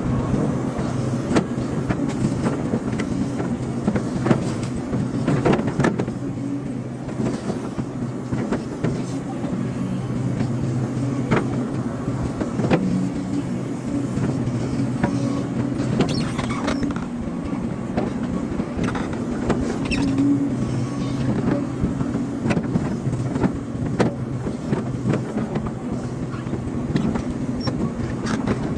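Hydraulic excavator's diesel engine running steadily under work, with frequent short clanks and knocks scattered throughout.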